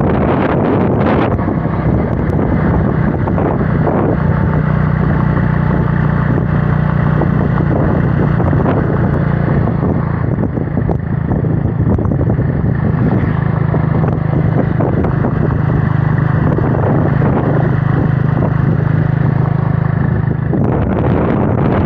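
Motorcycle riding along at a steady engine note, with strong wind rushing and buffeting over the microphone.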